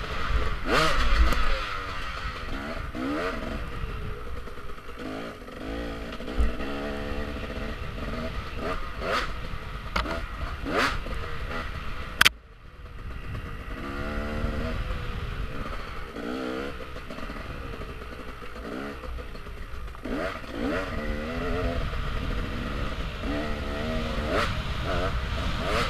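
Enduro dirt bike engine revving up and down with the throttle on a tight woodland trail, with knocks and clatter from the bike over bumps. A single sharp crack about twelve seconds in, after which the engine sound briefly drops away before picking up again.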